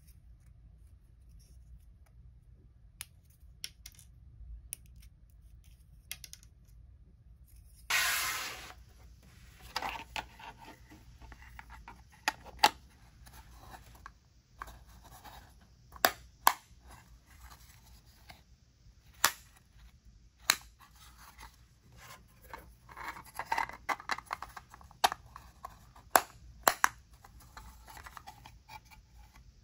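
3D-printed plastic crate panels being fitted together by hand: sharp separate clicks as the pieces snap into place, scattered irregularly, with plastic scraping and rubbing between them. A louder, brief scrape of the parts being handled comes about eight seconds in.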